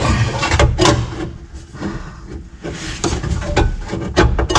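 Dash ashtray being forced into its opening in the dash: repeated scraping and rubbing, with several sharp knocks and clicks near the end.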